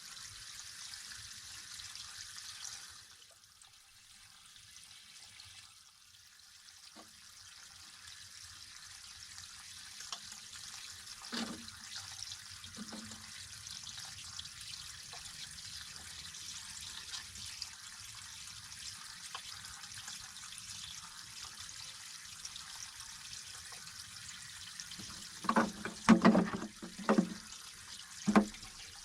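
Artesian well water running steadily out of the glued PVC plumbing, a continuous trickling splash that dips briefly a few seconds in. A couple of light knocks come near the middle, and a quick cluster of louder knocks from the pipe and fittings being handled near the end.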